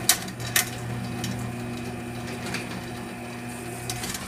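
LiftMaster 3595 chain-drive garage door opener running the door: a steady motor hum with the loose drive chain rattling along the rail and two sharp clanks in the first second. The motor cuts off near the end as the travel stops.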